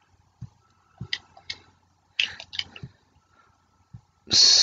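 A pause in the talk filled with a few faint, scattered clicks, then a short loud hiss near the end just before speech resumes.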